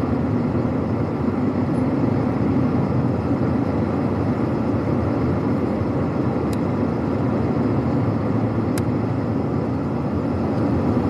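Semi-truck cab noise while driving: the steady drone of the engine mixed with tyre and road noise on an icy, snowy road. Two faint sharp ticks come a couple of seconds apart in the second half.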